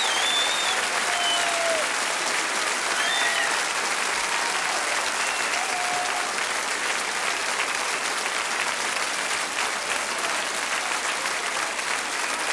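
Audience applauding steadily, with a few short whoops and whistles over the clapping in the first half.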